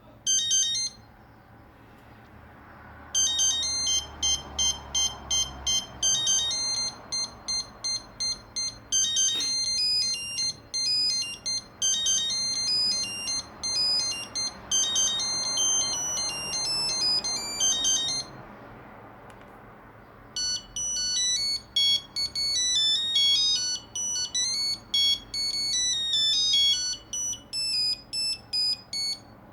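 Nokia 2100 mobile phone playing monophonic ringtones through its small speaker, one electronic note at a time. A short blip of notes comes right at the start, then a quick staccato melody runs for about fifteen seconds. After a pause of about two seconds a different melody begins.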